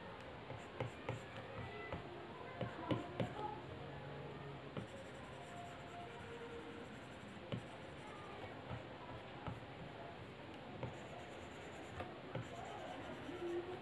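Stylus tip tapping and stroking on an iPad Pro's glass screen while drawing: a scatter of light, irregular ticks and short scratchy strokes. Faint background music plays underneath.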